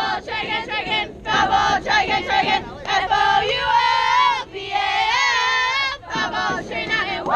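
Girls' voices chanting a sung softball cheer together, phrase after phrase, in high drawn-out notes.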